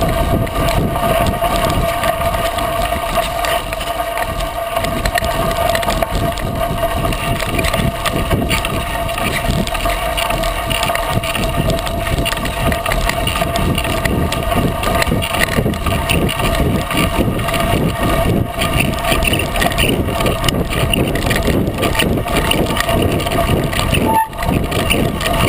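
Steady crunching rumble of a 36-inch Coker unicycle tire rolling down a gravel fire road, picked up by a GoPro mounted on the unicycle.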